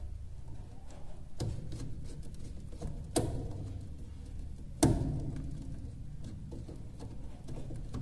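A few sharp clicks and knocks from a small screwdriver and wires being worked into the screw terminals of DIN-rail terminal blocks. The loudest comes about five seconds in, over a low steady hum.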